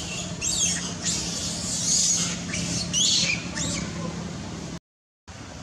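A series of short, high-pitched animal squeaks and calls, several with quick falling glides in pitch, over a low steady hum; the sound drops out briefly near the end.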